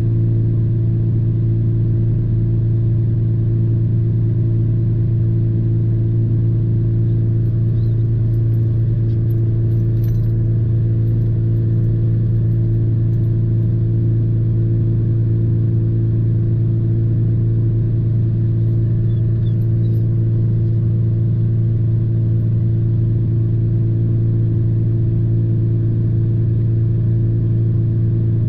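Engine of a parked car idling, a steady low hum heard from inside the cabin.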